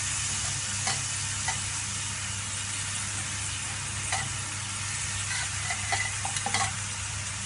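Marinated chicken pieces shallow-frying in a little hot oil in a nonstick frying pan: a steady sizzle, with a few light ticks scattered through it.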